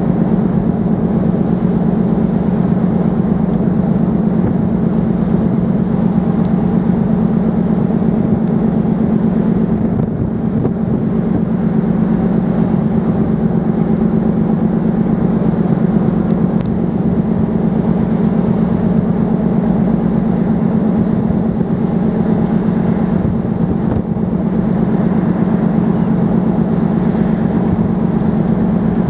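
Steady drone of a passenger ferry's engines heard on board: a constant low hum under a broad rush of noise, unchanging throughout.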